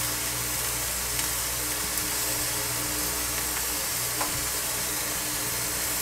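Skewers of pork fillet, bacon and potatoes sizzling steadily on a hot electric grill set to full power, with the steady rush and hum of an electric fan behind it. A few light clicks as metal tongs touch the skewers and grate.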